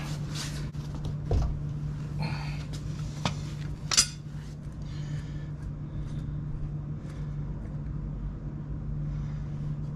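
A plastic threaded grease cap on a trailer wheel hub being gripped with pliers and unscrewed by hand: scattered clicks and scrapes, with one sharp click about four seconds in. A steady low hum sits underneath.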